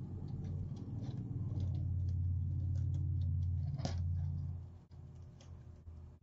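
Plastic deco mesh rustling and crinkling in small ticks as it is folded by hand, with a sharper tick about four seconds in. A steady low hum sits under it and stops about two-thirds of the way through.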